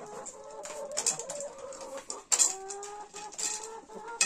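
Flock of Adler Silver hens clucking, several birds calling at once in drawn-out, partly falling notes, with sharp quick taps of beaks pecking at corn in the feeder and on the floor.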